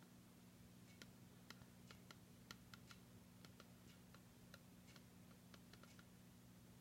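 Near silence: faint, irregular light ticks and clicks, two or three a second, over a steady low hum.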